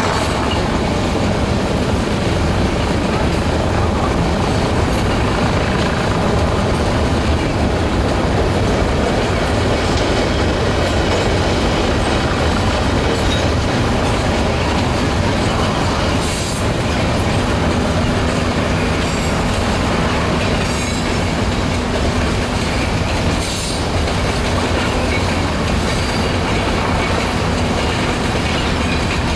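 Freight cars of a mixed manifest train (tank cars, boxcars and covered hoppers) rolling past: a steady rumble of steel wheels on the rails, with a few sharper clicks.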